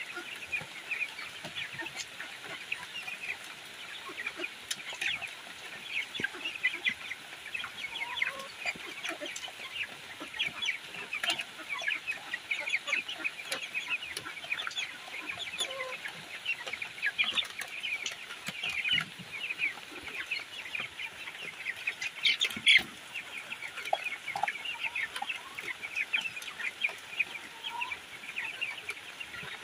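A flock of 16-day-old broiler chicks peeping continuously, many short high calls overlapping, with one sharp knock about two-thirds of the way through.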